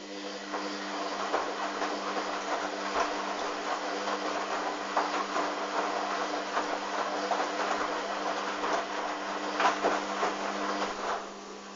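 Hoover Dynamic washing machine running: a steady motor hum under a rushing, sloshing noise with scattered clicks from the turning drum. The sloshing stops about eleven seconds in.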